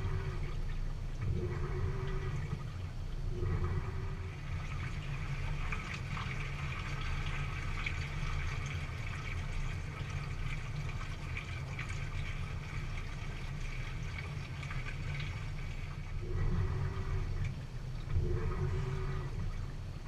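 Water sloshing and churning inside a Samsung high-efficiency top-load washer's tub as the load is washed. Near the start and again near the end, a short motor hum repeats every second or two with the agitation strokes. In the middle the hums stop and the water swishes steadily.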